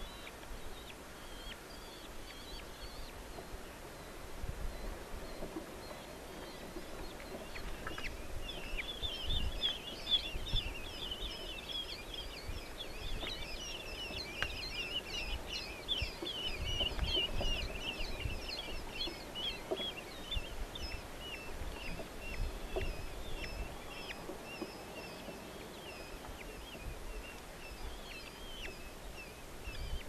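Red-footed falcon chicks begging at a feeding, giving rapid, high calls. A few faint calls come first, then a dense run starts about eight seconds in and thins out toward the end, with low bumps underneath.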